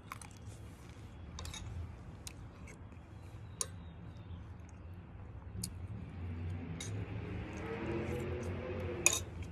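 A metal spoon clinking and scraping against a ceramic bowl of stew in scattered sharp clicks, the loudest near the end, over a low steady hum. From about six seconds in, a rushing sound with a low droning tone swells and then fades just before the end.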